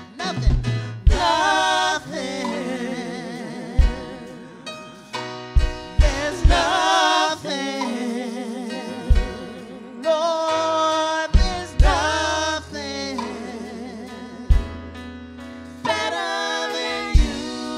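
Live gospel worship song: several singers with mics sing with vibrato over electronic keyboard accompaniment, with a sustained low bass line and drum hits.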